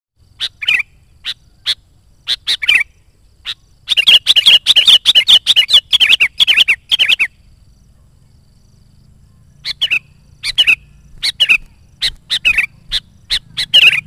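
Sooty-headed bulbul singing: a few short chirps, then a fast string of loud falling whistled notes for about three seconds, a pause of about two seconds, and more short phrases near the end.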